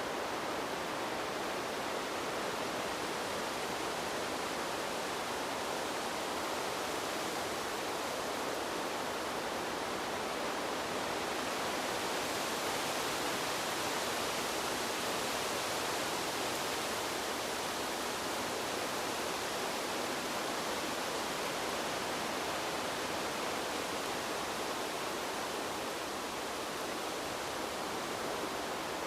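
Steady wind, a continuous rushing hiss that swells a little partway through.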